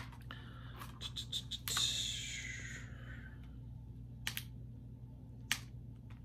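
Plastic Blu-ray case being handled: a few light clicks and taps, a short scraping rustle about two seconds in, and two more single clicks later, over a steady low hum.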